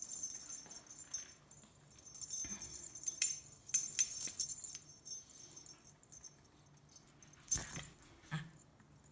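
A cat's metal collar jingling in several short bursts as the cat moves, with a single thump about seven and a half seconds in.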